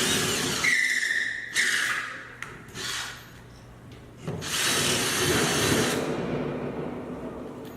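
Power drill running in several short bursts, driving in the anchors and screws that hold grid-wall brackets: a whining run in the first two and a half seconds, a brief one near three seconds, and a longer run from about four and a half to six seconds.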